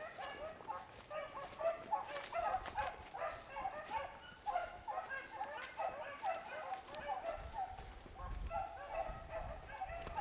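A pack of beagles baying while running a rabbit: several hounds giving tongue at once in a steady stream of overlapping calls, the sign that they are on the rabbit's scent.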